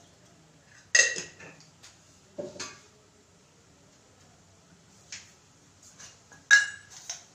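Stainless steel spice tins and lids clinking: about five sharp metal knocks, each with a short ring, the loudest about a second in and near the end.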